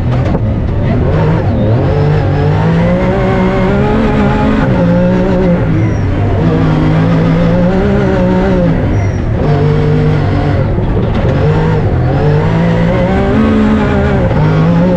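Rally car engine running hard at high revs on a snow-and-ice stage, its pitch climbing and falling again and again.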